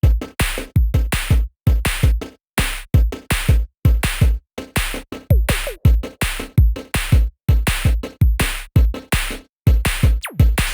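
Electronic background music with a punchy drum-machine beat and heavy bass, starting abruptly out of silence.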